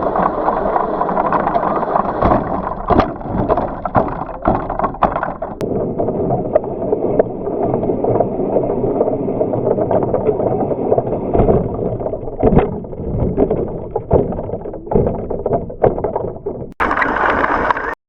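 Onboard sound from a GoPro strapped to a racing RC car's body: a steady rumble of the car running, with frequent knocks and rattles as the body shakes. About 17 seconds in the sound cuts abruptly to a brighter, hissier noise.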